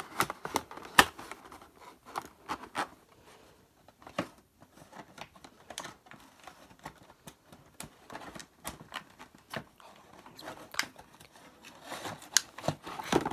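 Cardboard box and plastic packaging being handled and pulled open: irregular rustles, crinkles and clicks, the sharpest about a second in and again near the end.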